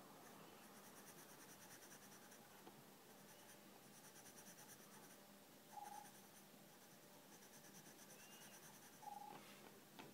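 Faint scratching of a colored pencil shading on sketchbook paper, in runs of quick back-and-forth strokes. Twice, about six and nine seconds in, a short high chirp sounds over it.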